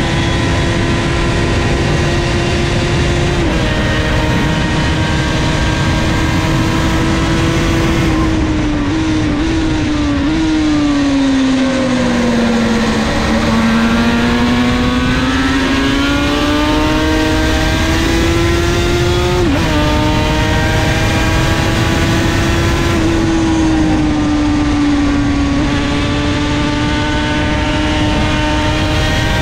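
Two-stroke sport motorcycle on expansion-chamber exhausts, heard from on board at racing speed with wind rushing past: the engine runs high in the revs, drops through several downshifts about eight to ten seconds in to its lowest pitch through a corner, then climbs again and changes up near twenty seconds in.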